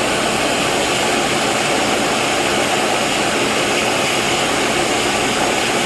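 Steady, even rushing noise of a dust-extraction vacuum running while a graphite tool is hand-sanded.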